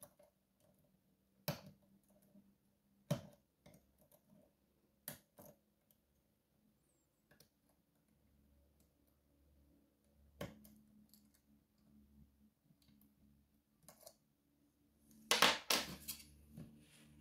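Small metal clicks and ticks of a lock pick and tension tool working in an Evva 3KS slider lock held in a vise, a few separate clicks spread out. Near the end comes a louder burst of clicking and clatter as metal picks are handled on the wooden table.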